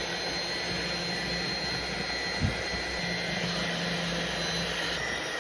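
Electric mixer running steadily at a constant speed, combining muffin batter, with an even motor whine. One brief thump about two and a half seconds in.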